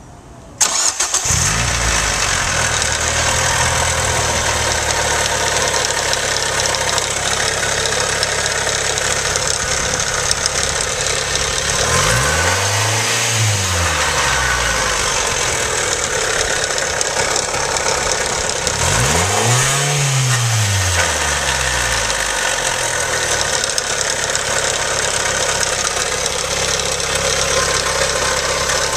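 Car engine starting about half a second in, then idling, revved up and back down twice, with a ticking that the owner suspects is a spun bearing.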